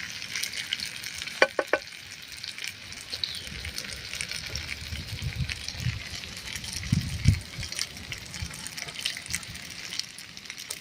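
Flour-battered leaves frying in hot oil: a steady sizzle with fine crackling as they crisp. Three sharp clicks come about one and a half seconds in, and a few dull knocks follow later.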